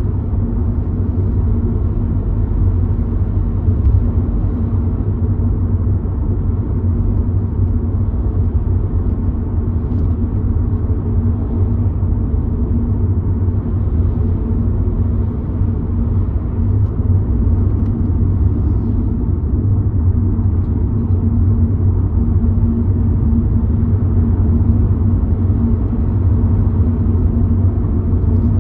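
Steady low rumble of a car being driven along the road, heard from inside the cabin: tyre and engine noise with no sudden sounds.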